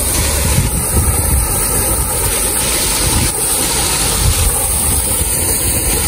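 Steady rushing and splashing of water falling down an artificial rock waterfall into a pool, with low wind rumble buffeting the microphone.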